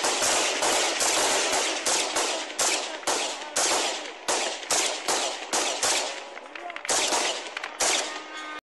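AK assault rifles, several firing at once, in a rapid, irregular string of single shots and short bursts, about four or five shots a second at first and more spread out later.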